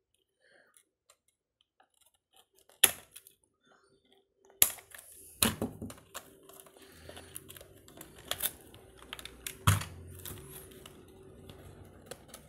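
Scissors snipping the ties that hold a toy car in its box, with sharp snips about three seconds in and again near five seconds. Then come handling noises: plastic clicks and cardboard rustling as the toy and the box insert are moved about.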